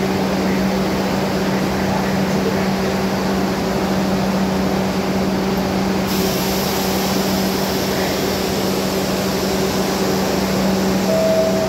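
R62 subway train standing in the station with its doors open: a steady electrical hum and ventilation blowing. About halfway a higher hiss of air joins in. Near the end the first, higher note of the two-note door-closing chime sounds.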